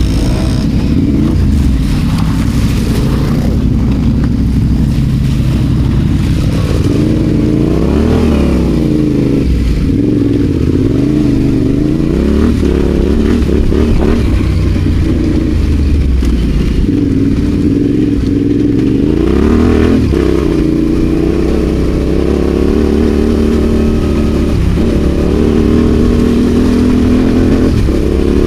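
Adventure motorcycle engine under way off-road, its note rising and falling again and again as the throttle opens and closes.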